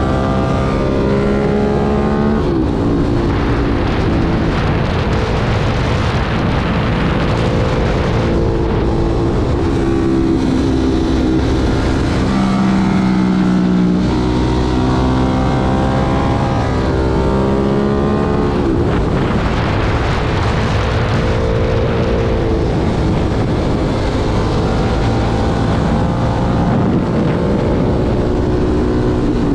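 Ducati Monster 1200's L-twin engine pulling hard under a rider: the engine note climbs steadily, then drops sharply, over and over as it accelerates and rolls off on a winding road. Wind noise rushes underneath.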